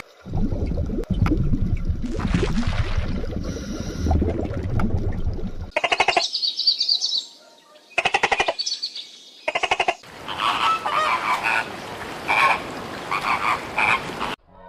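Animal calls in separate stretches: a low rumbling sound for the first half, then several bursts of rapid, rattling pulsed trills, then a run of shorter repeated calls that stops just before the end.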